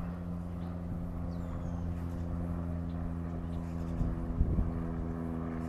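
An engine running steadily at a constant pitch, a low hum that holds unchanged throughout.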